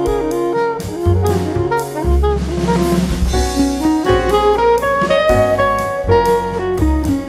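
Instrumental jazz background music: a horn melody over bass and a drum kit keeping a steady beat.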